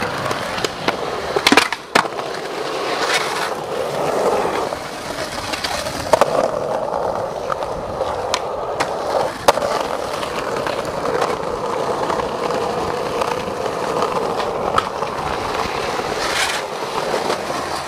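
Skateboard wheels rolling over concrete and asphalt, with several sharp clacks of the board striking the ground, the loudest about a second and a half in, at two seconds, and about nine and a half seconds in.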